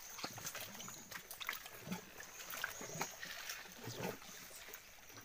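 Quiet handling noise: scattered small clicks and rustles, with a few brief low murmurs.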